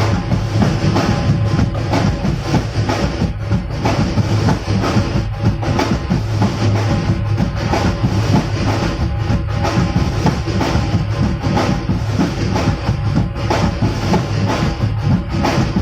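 Loud music with a driving drum beat and heavy bass, played through a large PA sound system under sound check.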